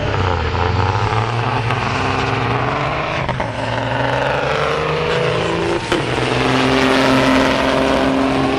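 Two diesel semi-truck tractors accelerating flat out from a drag-race launch, engine pitch climbing and stepping back down several times as they pull through the gears. Loudest near the end as the red truck passes close.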